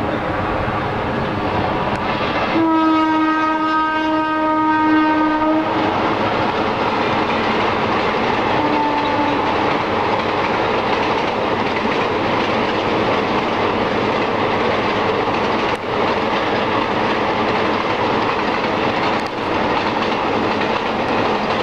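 Indian Railways WAP-4 electric locomotive horn sounding one long blast of about three seconds, then a short toot about three seconds later, over the steady rumble and wheel clatter of the express train running past at speed.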